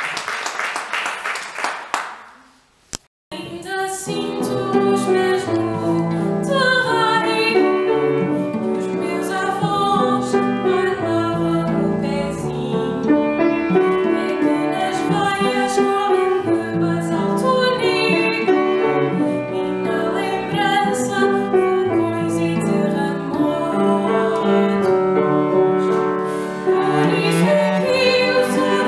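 Applause fading out, a brief pause, then a woman singing with piano and cello accompaniment, starting about three seconds in.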